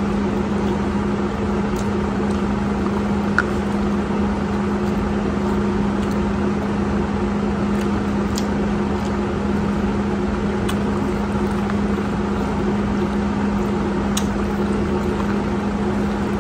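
A steady low hum over a constant hiss, like a running appliance or fan, with a few faint clicks of corn on the cob being bitten and handled.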